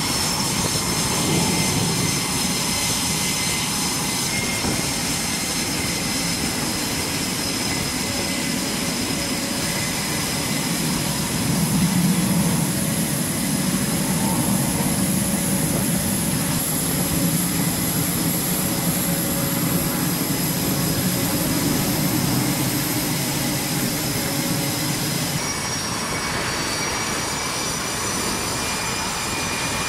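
Jet engines of F/A-18-family carrier jets (General Electric F414 turbofans) running at low, taxiing power on a flight deck: a steady loud roar with a high turbine whine over it. The whine's pitch and mix shift abruptly about 25 seconds in.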